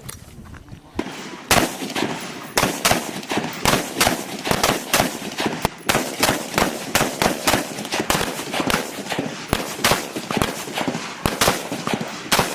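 Tavor bullpup assault rifles fired by several shooters at once: sharp, irregular, overlapping shots, several a second. The firing starts about a second in after a short lull and keeps going almost to the end.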